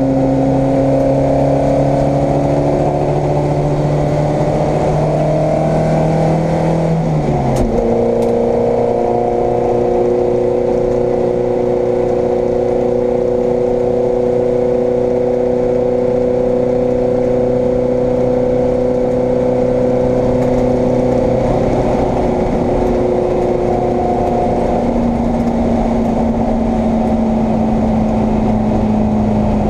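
Vauxhall Firenza race car's engine at full throttle, heard from inside the cabin: the revs climb for about seven seconds, drop sharply with an upshift, then hold nearly steady along the straight and ease down slowly near the end.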